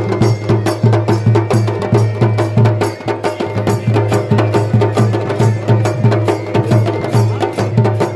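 Chholiya folk band music: fast, dense drum strokes over a steady low drone.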